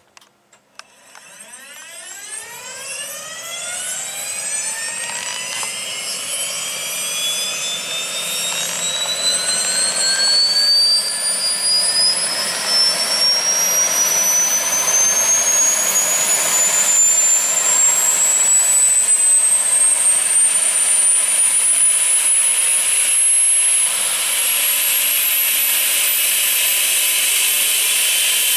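Turbomeca Arrius 2F turboshaft engine of an Airbus EC120B Colibri helicopter starting up. A whine begins about a second in and climbs steadily in pitch throughout, growing louder over the first ten seconds and then holding as the turbine spools up.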